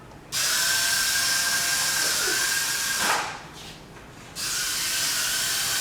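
Suction fan of a toy wall-climbing remote control car running with a steady whirring hiss. It switches off about three seconds in and starts again about a second and a half later.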